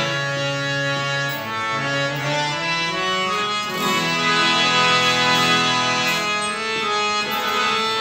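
Harmonium playing a melody in held, reedy notes that step from pitch to pitch, with acoustic guitar and tabla accompanying underneath.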